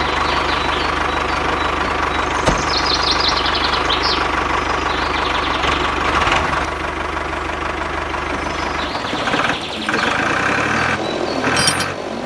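A tractor's diesel-type engine runs steadily with a low hum. About nine seconds in the low note drops away and the engine sound shifts in pitch.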